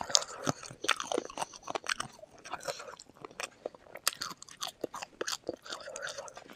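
Close-miked chewing with many sharp, irregular crunches as a person eats spicy food.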